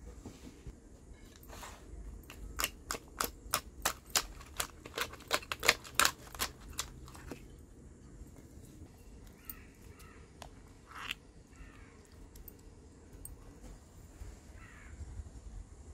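A spoon knocking and scraping against a cooking pan as crab masala is emptied out onto a banana leaf: a quick run of sharp taps, about three a second, that stops after several seconds, with one more tap a few seconds later.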